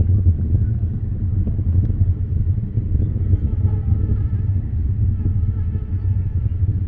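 Distant Falcon 9 rocket's nine first-stage Merlin engines in ascent: a steady, deep rumble.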